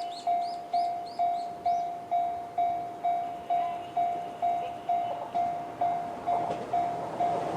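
Japanese railway level-crossing alarm in the JR standard tone, dinging about twice a second, each ding fading before the next. In the last couple of seconds the rumble of an approaching 211-series electric train grows beneath it.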